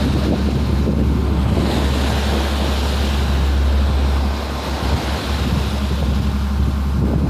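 Tour boat's engine running steadily, with wind on the microphone and the sea washing past the hull.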